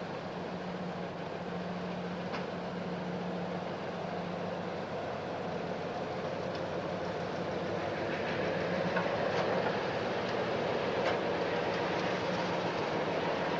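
ST44 (Soviet M62) diesel locomotive with its two-stroke V12 engine running as it moves along the platform, a steady hum that grows louder from about eight seconds in as it nears, with a few sharp clicks from the wheels.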